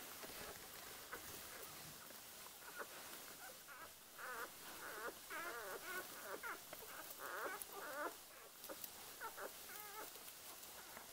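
One-day-old Border Collie puppies squeaking and whimpering: a string of short, high, wavering little calls, coming thickest from about four seconds in.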